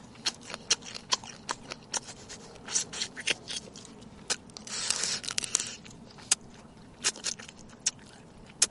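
Cooked shellfish shells being bitten and cracked open: a run of sharp, irregular crunches and cracks, with a short scraping rasp about five seconds in.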